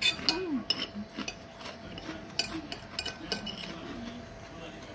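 Metal spoon scraping and clinking against a ceramic plate as the last of the food is gathered up: a run of irregular clinks and scrapes.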